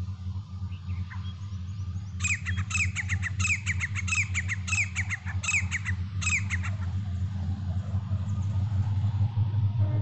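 Grey francolin calling: starting about two seconds in, a run of rapid falling notes in quick repeated groups, lasting about four and a half seconds. A steady low hum runs underneath.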